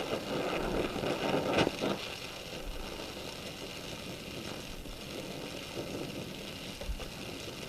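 Oxy-acetylene gas welding torch flame hissing steadily as it melts a steel weld, a little louder for the first two seconds, with a single light tap about a second and a half in.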